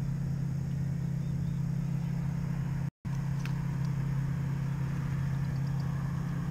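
A steady low engine-like hum that cuts out completely for a moment about three seconds in.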